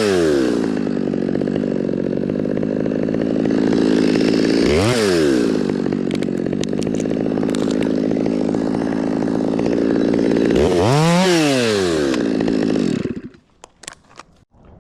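Chainsaw running steadily, its engine revving up and back down three times, then cutting out near the end, followed by a few light clicks and knocks.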